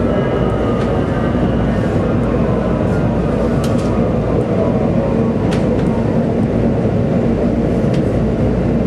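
Washington Metro Red Line train running, heard from inside the car: a steady rumble under a motor whine of several tones that falls slowly in pitch as the train slows, with a few sharp clicks along the way.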